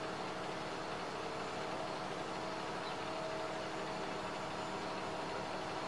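Steady hiss with a low, even hum, like a vehicle engine idling.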